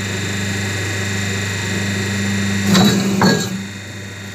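Hydraulic double-die paper plate making machine running with a steady hum, with two knocks about half a second apart a little under three seconds in.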